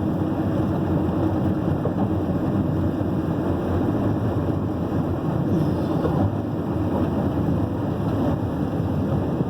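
Steady rumble and hiss of a vehicle moving fast along a rain-wet road.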